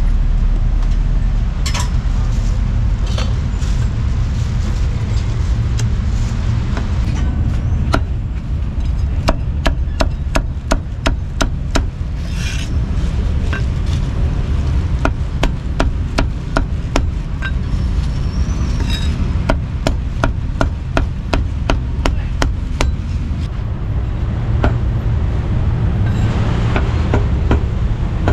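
Steel meat cleaver chopping roasted pork on a thick round wooden chopping block: runs of quick, sharp knocks, several a second, over a steady low rumble of street traffic.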